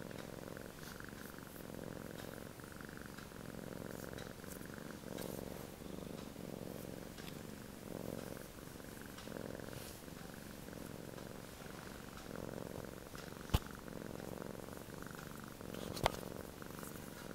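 Sphynx cat snoring while relaxed, a buzzing rasp that swells and fades with each breath, about once every second and a half. Two sharp clicks come near the end.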